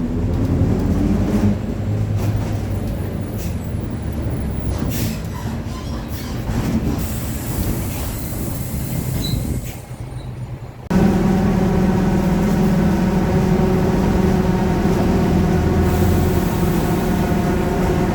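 Inside a Mercedes-Benz OF-1721 city bus on the move: uneven driveline rumble and body rattles, a brief lull, then about eleven seconds in a louder, steady whining drone of several tones starts abruptly and holds: the growling differential.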